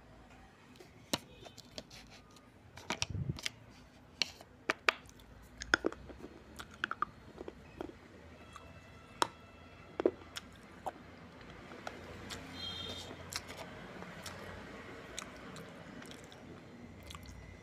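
Person eating, with irregular crisp crunches and cracks as dry baked-clay crumbles and red clay paste are bitten and chewed close to the microphone.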